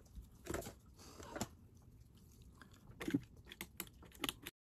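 Faint handling noise close to the microphone: a few soft rustles, then a quick run of small clicks from about three seconds in. The sound cuts off abruptly near the end.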